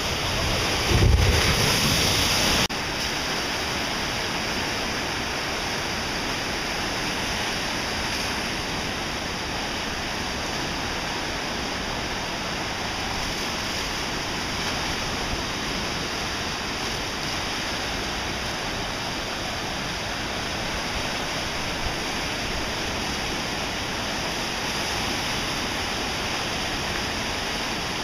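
Steady rush of churning water in a water ride's channel. In the first few seconds it is louder, with a low thump, then drops back abruptly to the steady rush.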